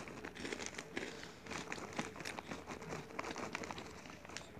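Crunchy snack being eaten close to the microphone: a quick, irregular run of crackles and crunches.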